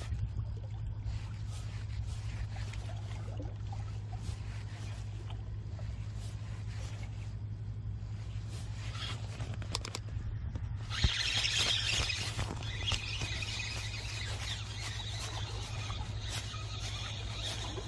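Fishing reel being cranked to retrieve a lure, a whirring hiss from about eleven seconds in, over a steady low rumble.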